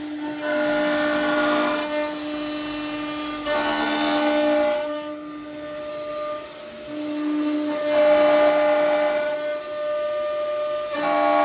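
MXZ-S086 automatic door lock and hinge hole drilling machine running its program, its cutting spindle whining in steady tones that swell in passes of a few seconds as it grooves the lock pocket in a wooden door.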